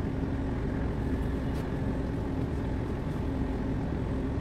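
Steady low rumble of a ship's engines and machinery under way, with a constant hum.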